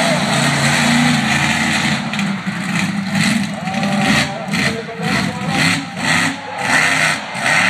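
Monster truck's big engine running hard, surging in repeated throttle bursts about every three quarters of a second as the truck climbs onto and drives over a row of cars.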